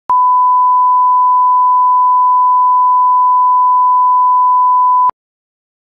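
Line-up test tone played over SMPTE colour bars: one steady pure beep at about 1 kHz lasting about five seconds, switching on and off abruptly with a click at each end.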